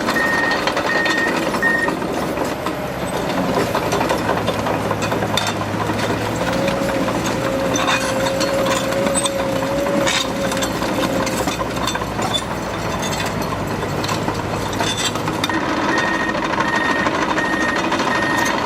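Heavy construction machinery running, its engine working steadily with a wavering whine for several seconds in the middle. A reversing alarm beeps in a steady pattern at the start and again near the end.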